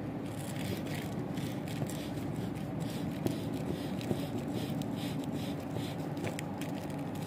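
A steady low mechanical hum, with faint scraping and handling noises over it.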